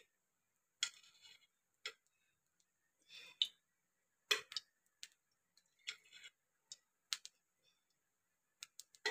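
Scattered faint clicks and light metallic taps of a steel spoon against steel kitchenware as a little more oil is added to an empty steel kadhai. The louder taps come about three and a half and four and a half seconds in.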